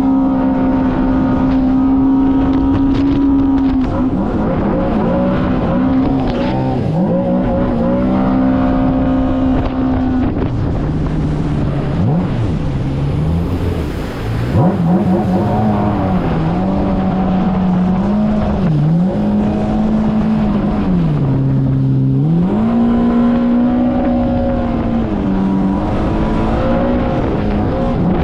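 Yamaha GP1800R personal watercraft's 1.8-litre four-cylinder engine running hard, its pitch steady at first, then dropping and climbing again several times as the throttle is eased and reopened.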